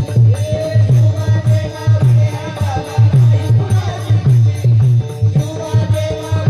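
Marathi devotional kirtan music: a deep hand drum beats a steady rhythm under jingling hand cymbals, with a held melody line above.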